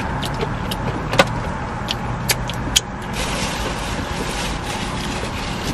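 Car engine idling steadily, heard from inside the cabin, with a few light clicks scattered through it.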